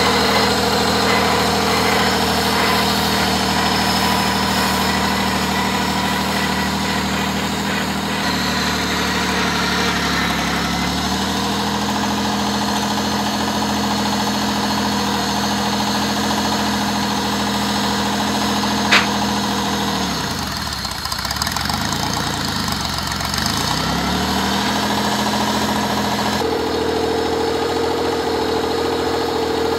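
Vintage Valmet tractor engine running at low speed as the tractor drives slowly over grass. Its pitch sags twice and recovers, the second dip deeper. There is one sharp click about two-thirds of the way through.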